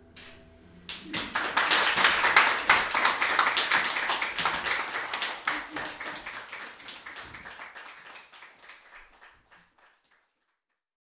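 An audience applauding at the end of a concert. The clapping swells in about a second in and gradually thins out until it stops near the end.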